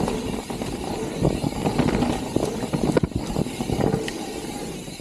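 Mountain bike riding fast down a dirt trail: tyres rolling over the dirt, with a continuous clatter of small knocks from the bike's chain and frame over the bumps.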